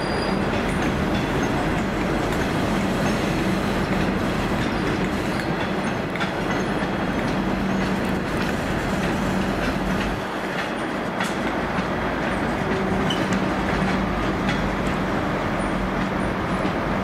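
A train moving through the station: a steady rumble with an even drone underneath, and wheels clicking over the rail joints.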